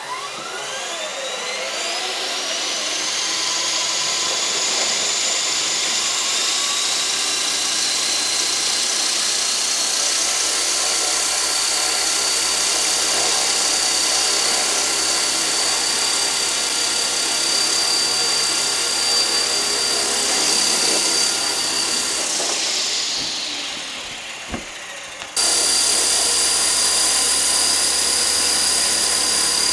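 Walkera Dragonfly 22E micro RC helicopter's electric motor and rotor spooling up with a rising whine, then running steadily at a high pitch. About 22 seconds in the whine falls in pitch as the throttle eases off, then cuts abruptly back to a loud steady whine.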